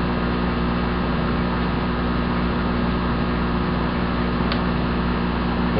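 Steady low hum with an even hiss over it, with one faint click about four and a half seconds in.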